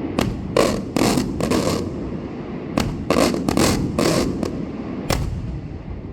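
Fireworks exploding in a rapid, uneven series of about a dozen sharp bangs over a continuous low rumble, the last bang about five seconds in.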